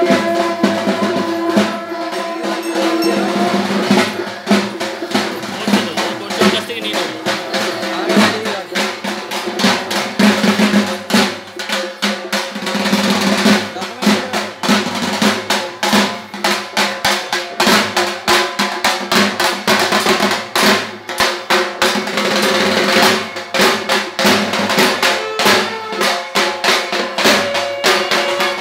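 Dhak drums played in a fast, driving rhythm, with a few steady held tones running under the strokes.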